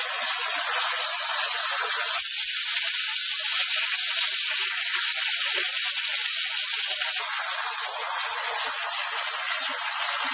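Steady, loud hiss of a metal-cutting torch cutting 1/4-inch steel plate. The lower part of the hiss thins out from about two to seven seconds in.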